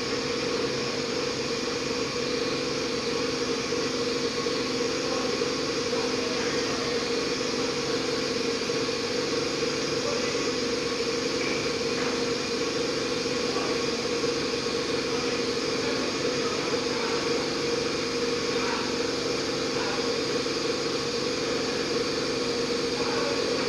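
A steady machine hum, made of several unchanging tones over a noise floor with one strong mid-low tone, holding an even level without a break.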